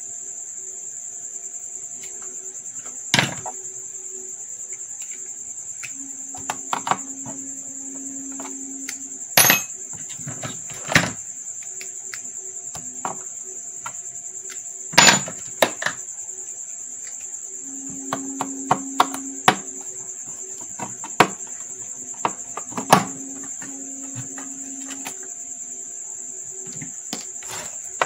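Scattered clicks and knocks of a screwdriver being handled, with a plastic screwdriver case, and set against the screws on the metal underside of a DVR. A steady high cricket drone runs underneath, and a low hum comes and goes twice.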